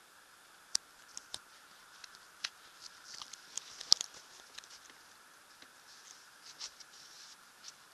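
Scattered light clicks, taps and rustles from a handheld camera being moved and handled, over a faint steady hiss in a small wood-panelled cabin. The clicks bunch together around the middle, with the sharpest one about four seconds in, and again near the end.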